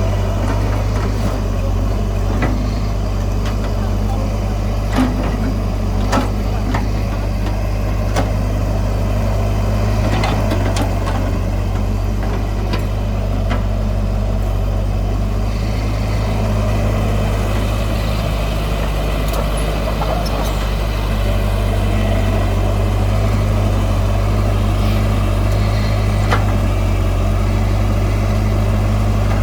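Heavy diesel earthmoving machine engine running steadily under a deep, even drone, with scattered short knocks and clanks from the machine working.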